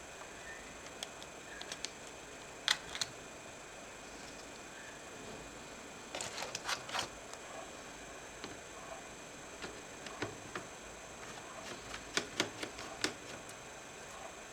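Small sharp clicks and taps of plastic and metal laptop parts being handled during disassembly, in a few short clusters over a faint steady hiss.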